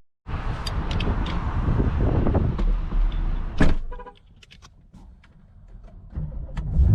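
Handling noise and clicks around a car, then a car door shutting with a thump about three and a half seconds in, followed at once by a short electronic chime. A low rumble builds near the end.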